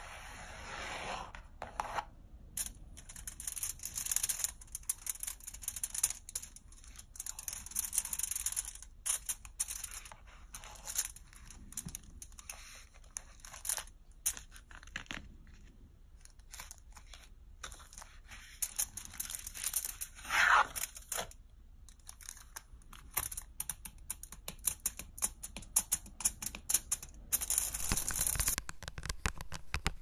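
Thin clear plastic packaging crinkled and scratched by hand, close to the microphone: irregular crackles and scrapes, with one louder crinkle about two-thirds of the way through.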